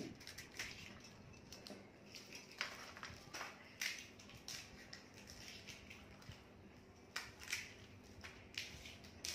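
Crisp, hollow fried panipuri shells cracking as they are pushed onto thin wooden skewers: a dozen or so short, sharp crackles at irregular intervals over a quiet background.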